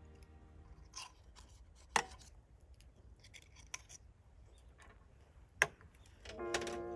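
A few sharp, scattered clicks and knocks, with the loudest two about two seconds and five and a half seconds in, like hard things being handled or tapped together. Background music comes in near the end.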